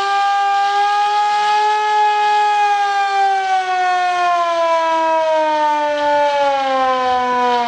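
A siren sounds one long, loud tone that rises a little in pitch, then sinks steadily over the last few seconds.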